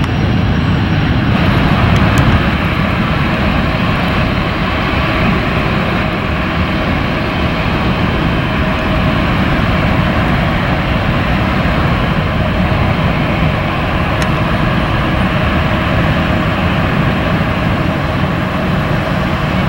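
Jet airliner engines running: a loud, steady noise with faint steady tones in it, a little louder about two seconds in.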